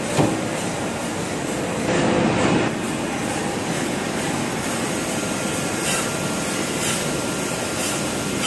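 External cylindrical grinding machine running, its grinding wheel turning against a steel shaft under a coolant stream: a steady mechanical hiss and hum. The sliding guard doors shut with a sharp knock just after the start, and the noise swells briefly about two seconds in.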